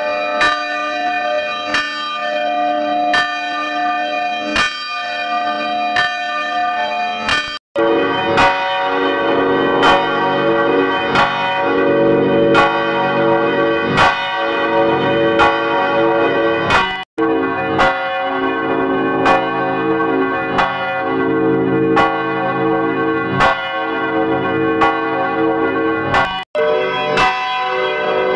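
Church bells ringing, strike after strike, each leaving a long ringing tone with many overtones. The sound cuts off abruptly and switches to another peal three times: about a quarter of the way in, past halfway, and near the end, the later peals fuller and lower.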